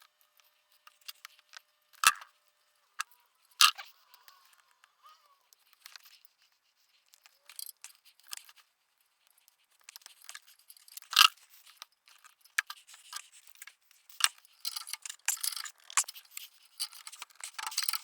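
Scattered clicks and light metal clinks of hand tools and plastic connector clips as oxygen sensors are unclipped and twisted out with a slotted O2 sensor wrench, with a few sharper knocks about two, four and eleven seconds in and a run of quick rattling clicks near the end.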